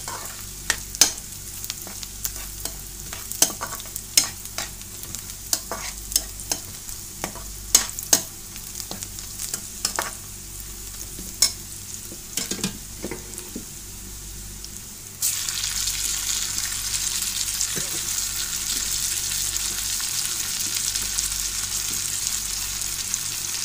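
A steel spoon stirs and scrapes onions and green chillies frying in oil in an aluminium pan: sharp clicks of spoon on pan over a light sizzle. About fifteen seconds in, the sizzle suddenly jumps louder and stays loud, as sliced tomatoes go into the hot oil.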